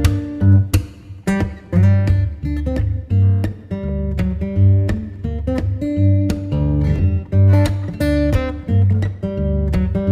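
Background music played on an acoustic guitar: plucked and strummed notes over a steady bass line.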